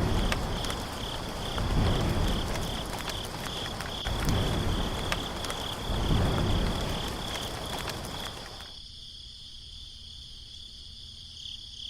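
Crickets chirping steadily under a loud rushing noise with low rumbles that swell and fade several times, dotted with clicks; the rushing cuts off abruptly about nine seconds in, leaving only the crickets.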